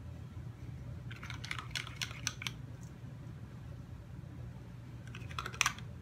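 Light clicking and tapping of a fork's tines working wet acrylic paint on a stretched canvas, in two quick runs: one about a second in lasting over a second, and a shorter one near the end. A steady low hum lies underneath.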